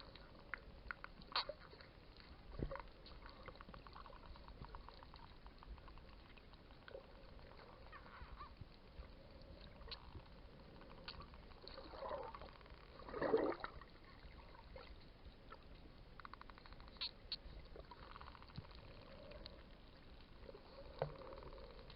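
Wild dolphins heard underwater: scattered sharp clicks and rapid click trains, with short squeaky whistles and a louder burst about thirteen seconds in.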